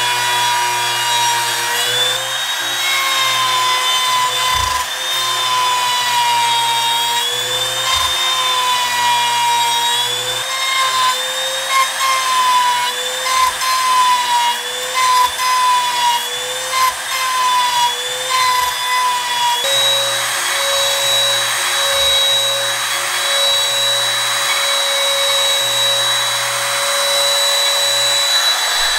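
RYOBI MTR-42 trim router running as it routs a slot along a board, its motor whine sagging and recovering in pitch again and again as the bit cuts. For the last third the whine holds a steady, slightly higher pitch, with a few faint low knocks along the way.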